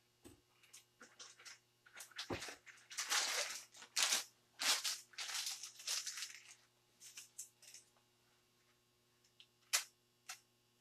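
Plastic piping bag crinkling and rustling in a run of irregular bursts as it is handled and filled with icing, then a sharp tap near the end.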